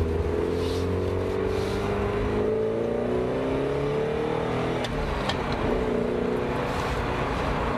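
1986 Porsche 924S's 2.5-litre four-cylinder engine pulling under acceleration, heard from inside the cabin. Its pitch climbs steadily for about five seconds, drops at an upshift, and the engine runs on at a steadier pitch.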